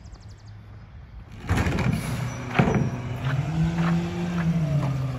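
Diesel engine of a Mack split-body McNeilus rear-loader garbage truck running after a quiet first second and a half, revving up for about a second a little past the middle and settling back, with several sharp knocks and clanks of carts being handled.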